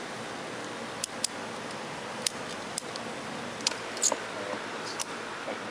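Ratchet tie-down strap being cranked tight: about eight sharp single ratchet clicks at uneven intervals.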